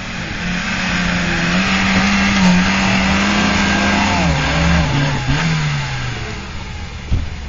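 Small Suzuki SJ-type 4x4's engine held at high revs under load as it climbs a steep muddy slope. The revs sag and fall away after about four seconds, and a single thump comes near the end.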